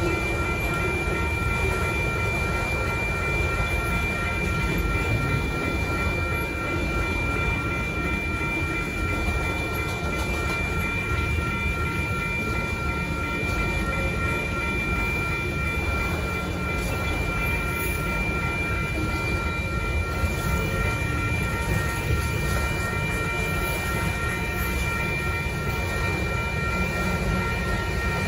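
Autorack freight cars of a long freight train rolling steadily past over the rails, a constant low rumble of wheels and cars. Over it the grade crossing's electronic warning bell keeps ringing with high, steady repeated tones.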